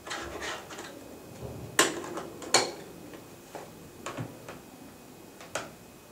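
Clicks and knocks of hands handling a handheld OTDR with rubber bumpers, tapping it and shifting it on the table. There are light taps at first, two sharp knocks about two seconds in and just under a second apart, then a few scattered lighter clicks.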